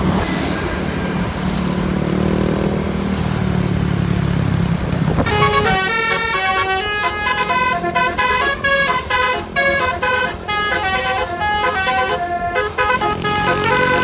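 A bus engine running for the first five seconds or so, then the bus's telolet basuri musical horn plays a fast tune of stepped horn notes, note after note, through the rest.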